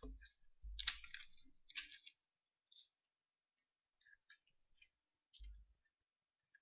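Faint paper rustling and small clicks as Bible pages are turned to find a passage, with a soft low thump near the start and another about five seconds in.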